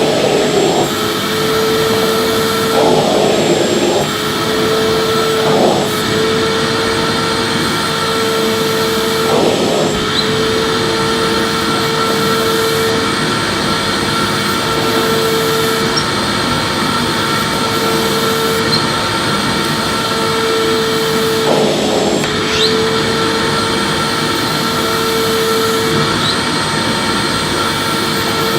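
Electric vacuum cleaner running steadily, a whining motor tone over the rush of air, its sound shifting briefly a few times as it is swept back and forth.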